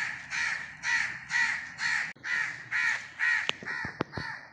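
Crows cawing over and over, about two harsh caws a second, with a few brief sharp squeaks near the end. The crows keep calling because their nest is in the tree close by.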